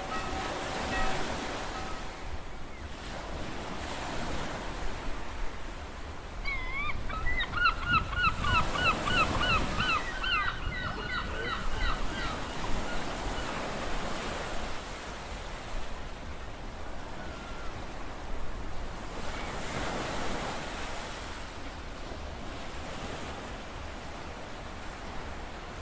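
Sea waves washing onto a beach: a steady surf hiss that swells and ebbs. From about seven to twelve seconds in, a bird calls over it in a quick run of short, repeated rising notes.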